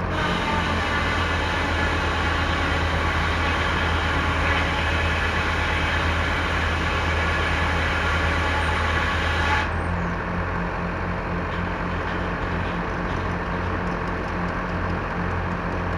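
Sawmill circular blade cutting through a log with a loud, steady hiss over the engine driving the mill; the cut ends abruptly about ten seconds in, leaving the engine running with a steady pulsing beat.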